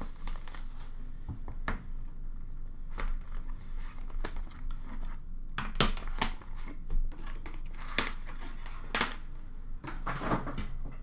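A cardboard hockey card box being unwrapped and opened by hand: a run of irregular crinkles, rips and scrapes of wrapping and cardboard flaps.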